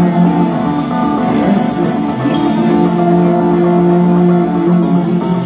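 Live rock band music led by electric guitar, its notes held long and changing about two seconds in, heard from the audience.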